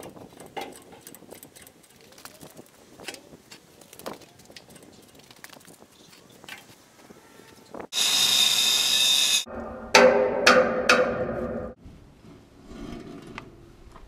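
Angle grinder against the steel hull, sparks flying, in two loud runs a little past halfway through: a hard high hiss, then a longer run whose pitch wavers and falls as the disc bites. Faint scattered clicks and knocks come before it.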